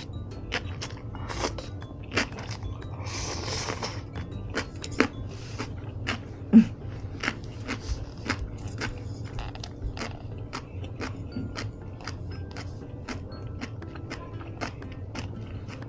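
Close-miked chewing of crunchy food: sharp crunches repeat irregularly throughout. There is a short hissy rush about three seconds in, and a brief low-pitched sound about six and a half seconds in, the loudest moment.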